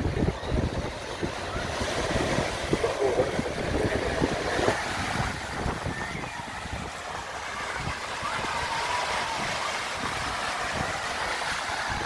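Wind buffeting the microphone in an uneven, gusty low rumble over the steady hiss of a beach by the sea, with faint voices now and then.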